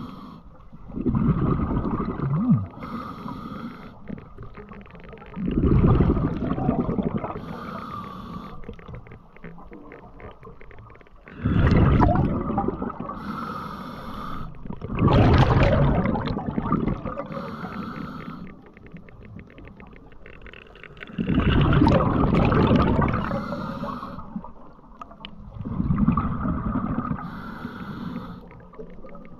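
A diver breathing underwater: six loud, noisy breaths about every four to six seconds, with faint hissing in between.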